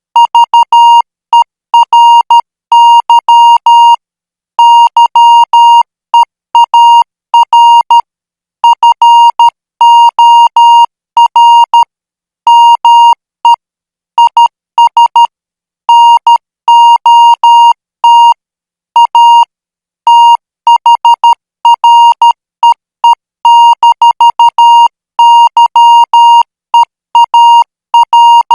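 Morse code practice signal: a single steady beep keyed on and off in short dots and longer dashes at 12 words per minute, letter groups separated by brief pauses.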